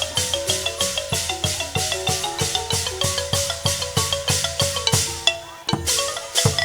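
Thai piphat ensemble playing likay music: a ranat xylophone melody over a steady, even beat of percussion strokes. The music thins briefly about five and a half seconds in.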